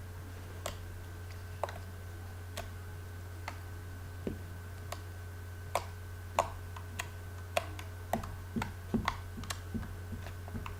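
Homemade slime made with Persil laundry detergent, squeezed and worked in the hands, giving off small irregular clicks and pops, sparse at first and coming more often in the second half. A steady low hum runs underneath.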